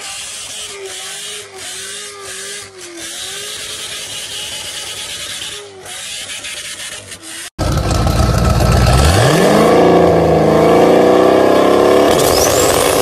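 Corvette V8 held at high revs during a burnout, its pitch wavering, with the hiss of spinning tyres. About seven and a half seconds in, the sound cuts to a much louder C7 Corvette V8 revving up: its pitch rises for about a second and a half, then holds high.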